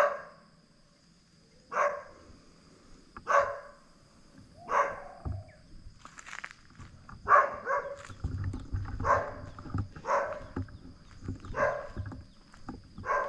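A dog barking repeatedly, about ten barks spaced roughly a second and a half apart. A faint steady high tone runs underneath, and a low rumble comes in about eight seconds in.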